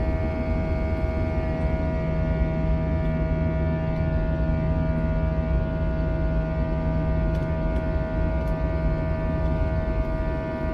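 Airbus A321 jet engines heard from inside the cabin during the climb after takeoff: a steady rumble under several steady whining tones.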